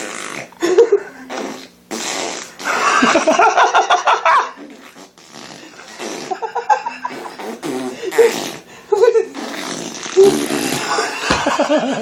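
Baby blowing raspberries, buzzing his lips to make wet fart sounds in a series of bursts; the longest and loudest runs for about two seconds a few seconds in.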